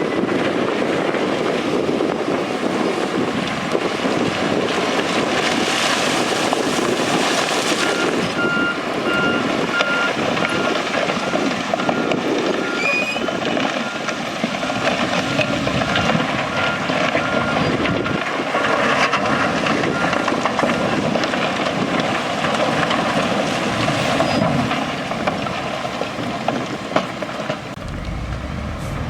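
Heavy diesel earthmoving machinery running steadily, with a reversing alarm beeping in a short run of evenly spaced beeps about a third of the way through.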